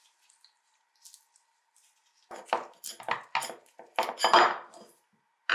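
Rusty old adjustable wrench being worked apart by hand: its sliding jaw is pushed along the threaded screw and guide rods, metal scraping and clinking on metal in a run of strokes about three a second. The strokes start about two seconds in.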